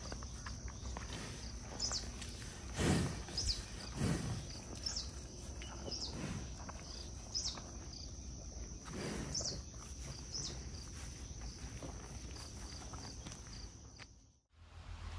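Insects shrilling steadily on one high note, with short high chirps about every second and a half. A few louder noisy swishes come about three and four seconds in and again around nine seconds. The sound cuts out briefly near the end.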